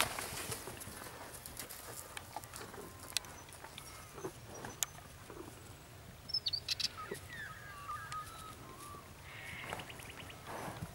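A horse's hooves stepping now and then on the track, with birds chirping about six to eight seconds in.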